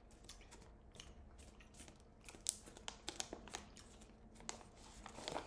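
Faint, irregular crunchy clicks of tough, woody tiger nuts being chewed.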